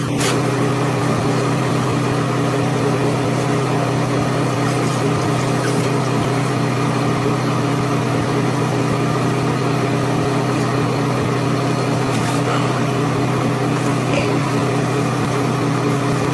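Loud, steady electrical hum that does not change, with a few faint taps now and then.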